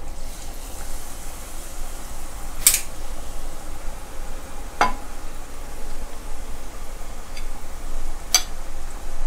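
Batter-coated meatballs deep-frying in a pan of hot oil: a steady sizzle, broken by three sharp clicks, one about two and a half seconds in, one near the middle and one near the end.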